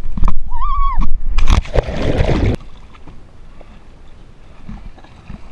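A short cry, then a loud splash lasting about a second as a kayak tips over and its paddler goes into the lake; it cuts off sharply, leaving faint water sounds.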